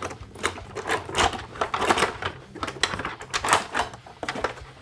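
Articulated plastic fingers of a Hasbro Marvel Legends Infinity Gauntlet clicking and rattling as they are worked by hand, with the finger lock engaged: a rapid, irregular run of clicks.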